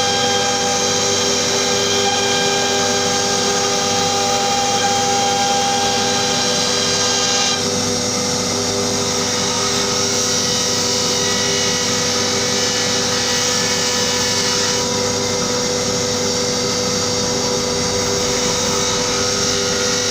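CNC router spindle running with a steady whine while cutting plywood. The cutting noise shifts about 7 seconds in and again about 15 seconds in.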